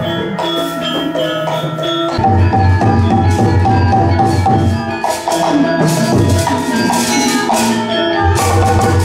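Sundanese gamelan music accompanying a mask dance: a melody on metal keyed instruments over repeated hand-drum strokes, swelling louder about two seconds in.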